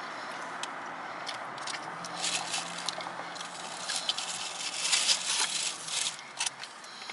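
Aluminium foil wrapped around tacos crinkling and rustling as it is handled, in a run of crackly bursts that grows busier after about two seconds and is loudest about five seconds in.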